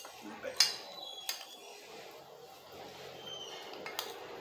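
Metal spoon clinking and scraping on a plate while eating, with four sharp clinks: three in the first second and a half and one near the end.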